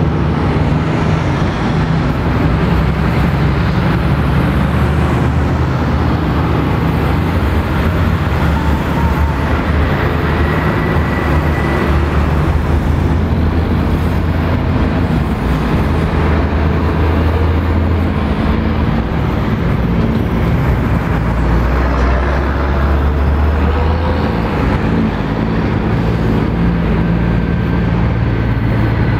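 Heavy road traffic passing close by: diesel semi-trucks and cars in a continuous stream. The low engine drone of the lorries rises and falls as each one goes past, over steady tyre noise.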